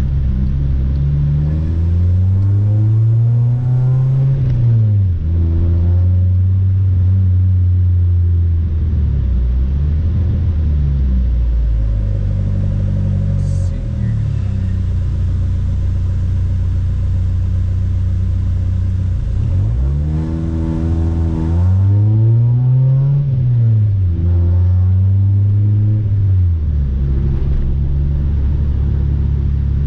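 Car engine and exhaust under way, pulling up through the revs and dropping at the gear change twice, steady cruising between. The engine has been setting misfire codes P0300 to P0304.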